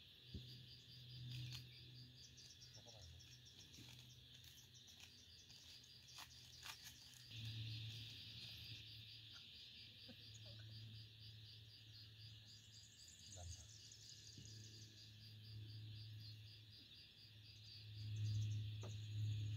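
Crickets chirping steadily in a fast, even pulse, with a faint low hum that swells and fades and is loudest near the end.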